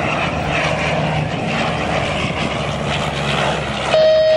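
Airliner engine noise at an airport, a steady rushing roar. About four seconds in, a loud steady beep cuts in and holds.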